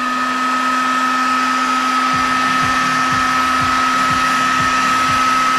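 BASS handheld heat gun running steadily: a rush of blown air with a steady low hum and a higher whine. It is heating a car headlight housing to soften the sealing glue before the lens is pried off.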